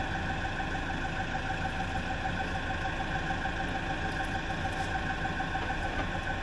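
Forklift engine idling steadily, with an even whine over it.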